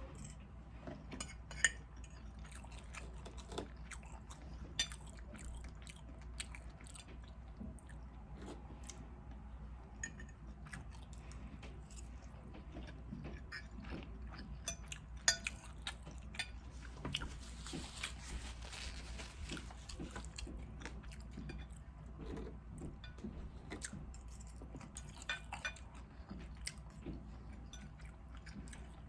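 Close-miked eating sounds: chewing, biting and mouth smacking, with many scattered sharp clicks. A steady low hum sits underneath.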